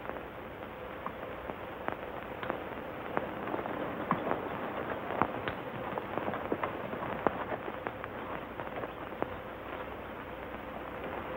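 Horses and a man walking through grass and brush: scattered irregular clicks and crackles over a steady hiss and a faint hum from an old film soundtrack.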